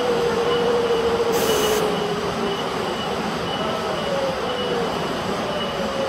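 Waterfall rushing steadily, with a long drawn-out tone sliding slowly down in pitch over the first few seconds and coming back fainter near the end. A faint high chirp repeats about once a second.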